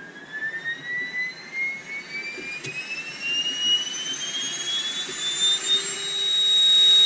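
Small turbo-style (radial blower) 3D-printer cooling fan in a modified housing spinning up as its supply voltage is turned up from 4 to 11 volts. It gives a whine that rises steadily in pitch and grows louder, levelling off near the end. The housing modification made the fan more efficient but really noisy.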